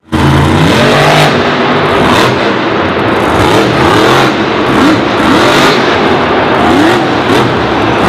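Dragon monster truck's supercharged V8 engine revving hard, the pitch rising and falling several times as the throttle is worked during wheelies.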